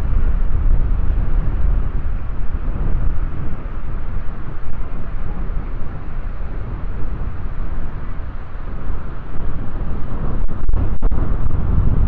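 Strong wind buffeting the microphone, a loud low rumble that rises and falls with the gusts. The sound cuts out briefly a couple of times near the end.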